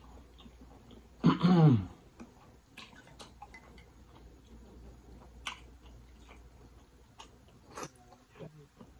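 Sauce-coated lobster tail being pulled apart and bitten: faint, scattered wet clicks and smacks of meat and mouth. About a second in comes a short vocal sound that falls in pitch, the loudest thing here.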